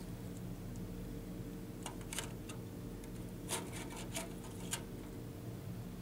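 Light clicks and taps from the clear plastic sliding top cover of a Corning CCH-02U fiber enclosure being handled, a scattered handful between about two and five seconds in, over a steady low hum.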